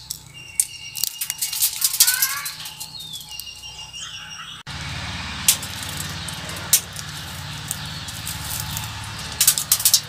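Sharp, irregular cracks and ticks as ripe seed pods burst open and their seeds strike corrugated roof sheets, thickest in the first couple of seconds. Birds chirp briefly a couple of seconds in.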